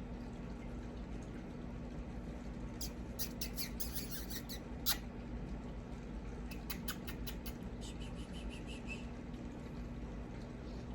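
A pet parrot cracking and nibbling seeds with its beak: clusters of sharp clicks and crunches, the loudest a single crack about five seconds in, then a quick run of soft chirps near eight seconds, over a steady low hum.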